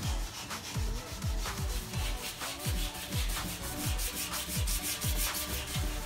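Hand sanding with a sanding block on a polyurethane-coated walnut butcher-block top, rasping back-and-forth strokes that scuff the cured finish down between coats. Under it runs electronic background music with a steady beat of deep kick drums.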